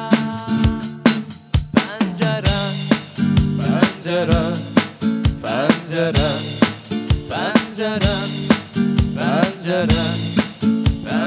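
Instrumental break of a pop song: a beatboxed drum beat with kick, snare and rimshot-like hits, over electronic keyboard and strummed acoustic guitar.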